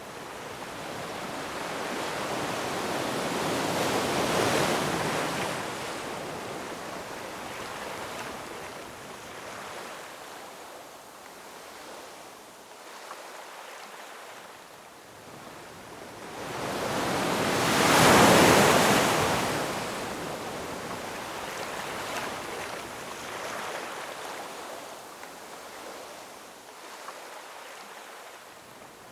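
Ocean waves breaking on rocks and washing back: two swells of surf, a smaller one about four seconds in and a louder one near the middle, each fading into a steady wash.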